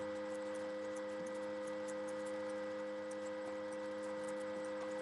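Faint, steady electrical hum made of several constant tones over a light hiss.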